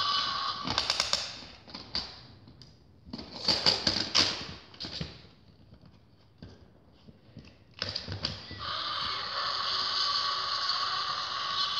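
Hard plastic dinosaur toy figures knocking and clattering together as they are pushed into a mock fight. In the last three seconds a steady rasping roar sounds.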